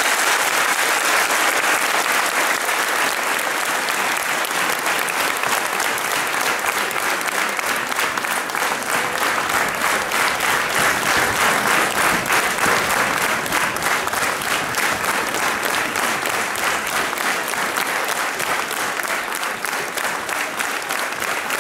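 Theatre audience applauding, a dense, steady clatter of many hands clapping.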